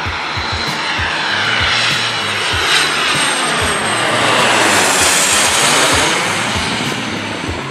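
A small twin-engine business jet's rear-mounted turbofans on final approach, passing low overhead. The jet noise swells to its loudest about five seconds in, with a sweeping, phasing whoosh as it goes over, then begins to fade.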